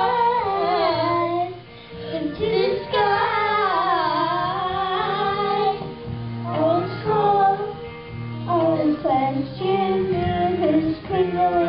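Two young girls singing a duet into microphones, their voices amplified, over sustained low accompaniment notes.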